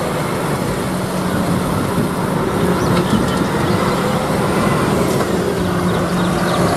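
Concrete mixer truck's diesel engine running steadily as the truck drives slowly past, with road noise.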